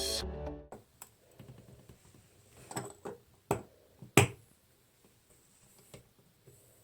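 Background music cuts off in the first second. Then come scattered sharp clicks and taps of faucet parts being fitted by hand, the loudest about four seconds in.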